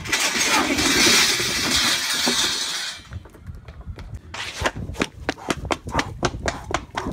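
A heap of stacked metal-framed and plastic chairs toppling over in a long clattering crash that lasts about three seconds. It is followed by quick running footsteps, about four a second.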